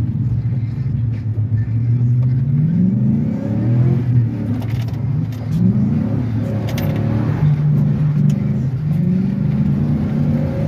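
GM full-size pickup's engine heard from inside the cab, revving up and dropping back several times as the truck is driven hard and slid around on wet pavement.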